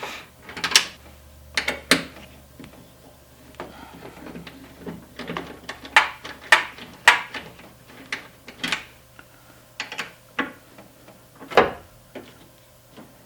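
Irregular clicks and short scrapes of a tool working the screws that hold a door lock actuator inside a minivan's front door, as the screws are undone.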